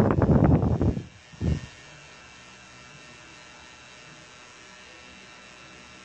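Tattoo machine buzzing steadily and faintly as the needle works ink into the skin. A louder, uneven noise covers it for about the first second, with a short burst at about a second and a half.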